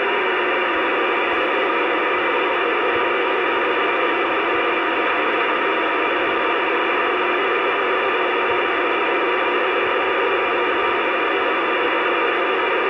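CB radio speaker putting out a steady static hiss with nobody transmitting on the channel, held to a narrow, radio-like band of pitch.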